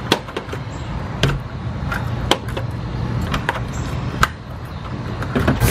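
A key jiggling in a doorknob lock, giving scattered sharp clicks and rattles: the lock is sticking and will not turn. A low steady rumble runs underneath.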